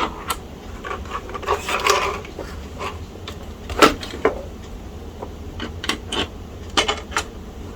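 Scattered light clicks and taps from handling small parts and screws during reassembly of a laptop, about a dozen, the sharpest near the middle, over a steady low hum.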